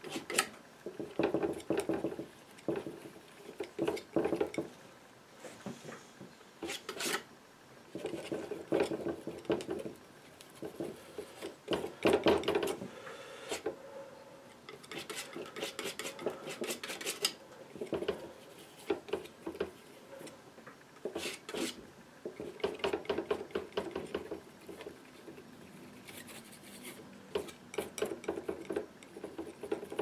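Painting knife scraping, tapping and clicking against the palette as oil paint is picked up and mixed, in irregular strokes.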